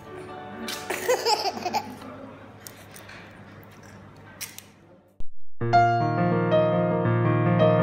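A baby laughing and squealing in the first couple of seconds over room noise. After a brief silence, piano music starts about five and a half seconds in.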